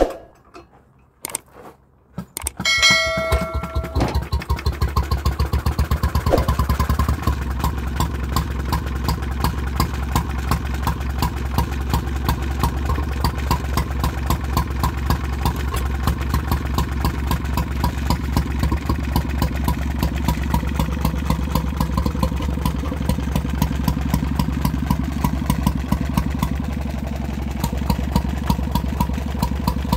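A 1.5 hp Petter M type single-cylinder hopper-cooled petrol stationary engine being started for the first time after a barn find. After a few clicks and a brief ringing tone, it catches about three seconds in, picks up speed, then runs with a steady, rapid beat of firing strokes.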